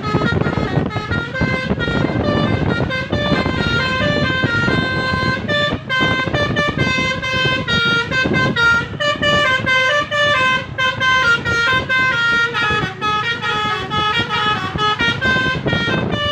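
Telolet horn, a bus's multi-tone musical air horn, playing a long, unbroken melody of quick stepped notes over a steady low rumble.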